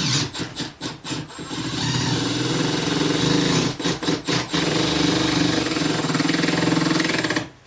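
Cordless drill driving a 2-inch screw through a trim piece into a composite cabinet: a few short trigger bursts, then the motor runs steadily for about six seconds with a brief stutter midway and stops suddenly near the end.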